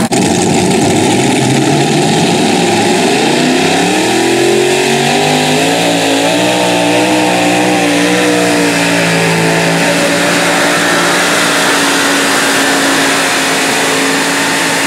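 Multi-engine super modified pulling tractor running flat out on a pull, very loud: the engine note climbs in pitch over a few seconds, wavers, then holds steady.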